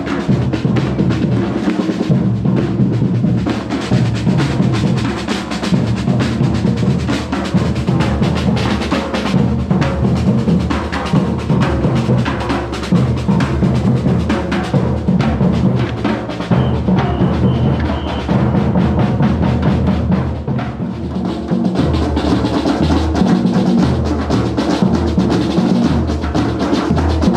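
Batucada drum group playing: bass drums and snare drums together in a continuous, driving rhythm.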